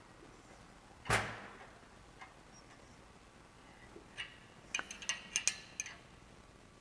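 A wrench turning a tapered pipe tap in the oil gallery hole of a cast-iron Pontiac 389 engine block: a single sharp knock about a second in, then a run of small metallic clicks and ticks a few seconds later.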